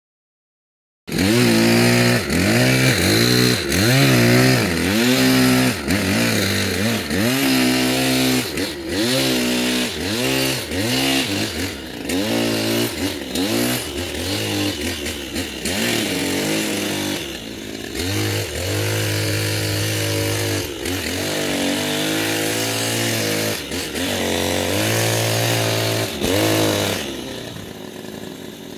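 Pole hedge trimmer's small engine revving up and down over and over as the throttle is squeezed and released while cutting a shrub. It starts suddenly about a second in and drops away quieter near the end.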